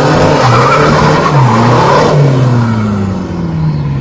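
Diesel pickup truck doing a burnout: the engine revs up and down while the tyres spin and screech on asphalt. The screech stops about halfway through and the engine winds down.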